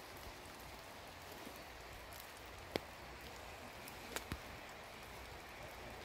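Light rain falling steadily, with a few sharp louder drips landing close by: one a little before the middle and two in quick succession about two-thirds through.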